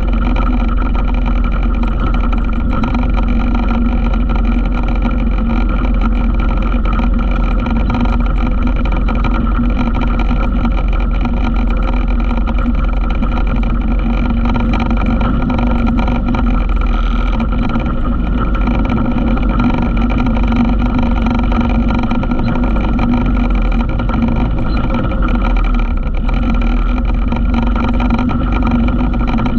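ATV engine running steadily under way, with a constant drone and road rumble.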